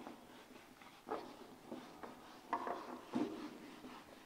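Whiteboard duster wiping across a whiteboard, a few short separate rubbing strokes as the drawing is erased.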